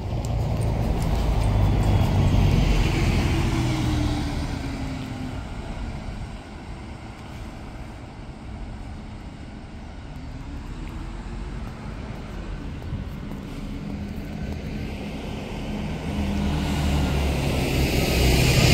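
Diesel road vehicles running past: one is loudest about two to four seconds in, with a short rising whine. Near the end a heavy vehicle draws close and grows steadily louder.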